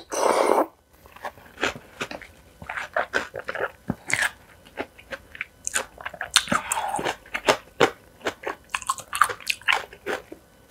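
Close-miked eating sounds of a meal of spicy cold noodles and green onion kimchi: crisp crunching bites and chewing in quick, irregular clicks, with a louder rush of noise at the very start.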